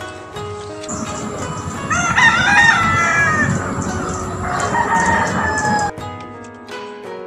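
A rooster crowing twice over steady background noise, the first crow the loudest sound. Background music plays at the start and comes back near the end.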